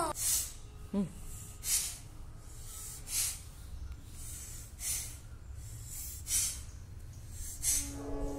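A young child doing a breathing exercise, taking six sharp, noisy breaths about every second and a half. Near the end he starts a steady hum.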